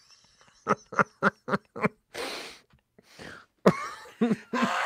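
Two men laughing: a quick run of short ha-ha pulses, a wheezing breath, then another burst of laughter near the end.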